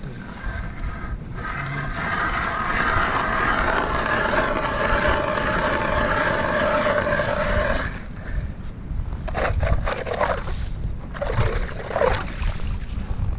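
An ice auger bores a hole through lake ice with a steady grinding noise that stops abruptly after about eight seconds, followed by irregular scraping and knocking as the ice is cleared.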